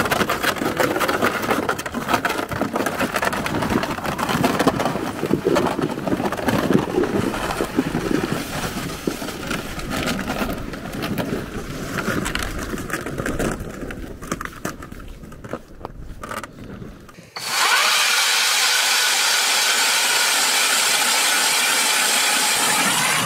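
A plastic gear sled dragged over snow-covered ice, with irregular scraping and crunching. About seventeen seconds in, this cuts sharply to an ION battery-powered ice auger running steadily at full speed, drilling a hole through the ice.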